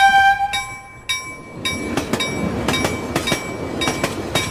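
A chime rings out and dies away in the first second, then a train passes at speed: wheels clattering over rail joints in quick, uneven clicks over a steady rumble.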